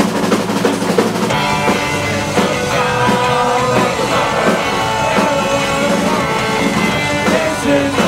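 Live punk rock band playing electric guitars, bass guitar and drums through a club PA, with the full band kicking in about a second in.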